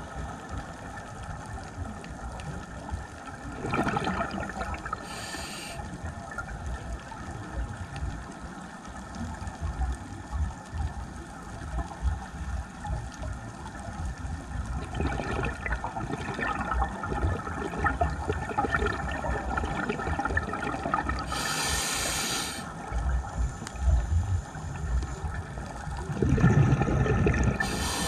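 Scuba diver's breathing heard underwater: gurgling rushes of exhaled bubbles and a few short hisses from the regulator, over a steady muffled underwater hum.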